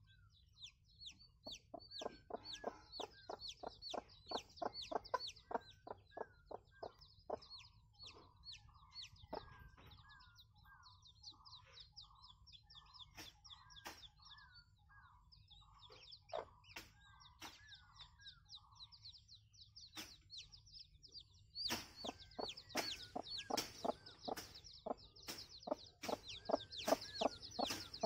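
Chicken peeping: rapid, high, short downward-sliding cheeps, joined in the middle by a run of lower, softer clucking calls. The peeping grows denser and louder from about three quarters of the way in.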